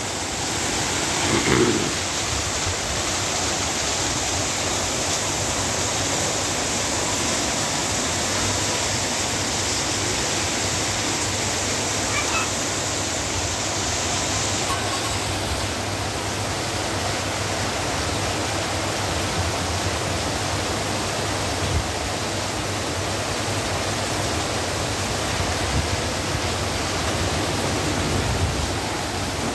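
Torrential rain pouring down in a steady, dense hiss.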